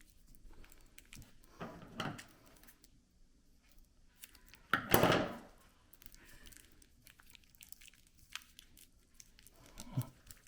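Wrapping material being handled and pulled around a LiPo battery pack: scattered crinkling and rustling, with a short rasp about two seconds in and a louder, second-long rasp about halfway through.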